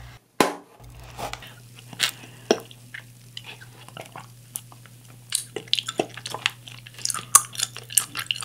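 A thick bubble-tea straw punched through the sealed film lid of a green tea bubble tea cup with one sharp pop about half a second in, then sips through the straw and wet chewing of tapioca pearls.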